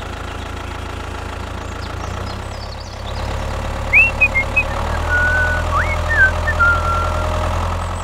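Tractor engine running steadily, a low drone that grows louder about three seconds in. Short high chirps and whistles sound over it from about four seconds in.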